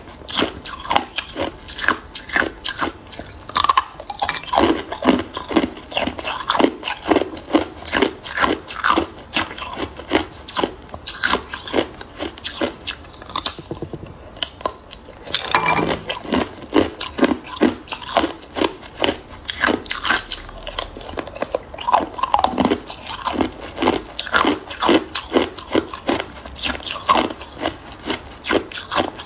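Hard, clear ice being bitten and crunched between the teeth: a rapid run of sharp cracks and crunches, several a second, with a short lull about halfway through.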